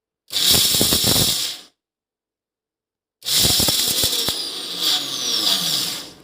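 Bosch TrueMixx Pro 1000 W mixer grinder running with its small chutney jar, in two short bursts with silence between. The second burst is longer, and its whine falls in pitch near the end as the motor slows.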